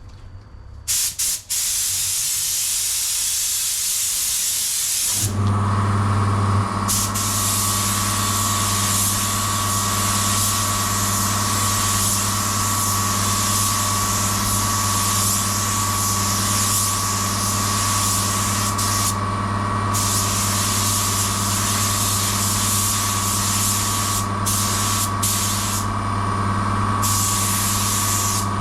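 Fuji HVLP turbine spray system spraying clear coat: the gun's steady hiss of air and paint over the turbine's constant humming drone, which starts about five seconds in. The hiss stops briefly twice as the trigger is released while the turbine keeps running.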